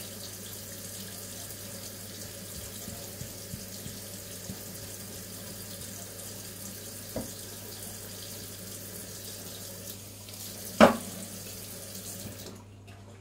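Kitchen tap running steadily into a stainless steel sink. A single sharp knock comes about eleven seconds in. The water cuts off near the end.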